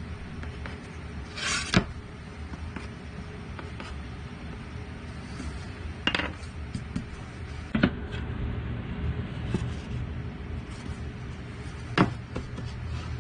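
A few sharp knocks and a short scratch of a thin poplar board and hand tools being handled on a plywood workbench, over a steady low hum.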